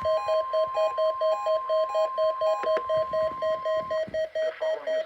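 NOAA Weather Radio warning alarm tone, a steady tone near 1 kHz that cuts off about four seconds in. Under it, rapid electronic alarm beeping runs at about five beeps a second. A voice begins faintly near the end.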